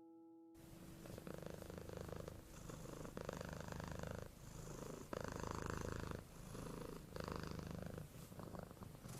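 Domestic cat purring, the rumble swelling and easing with each breath about every second and a half. A held musical note fades out at the very start.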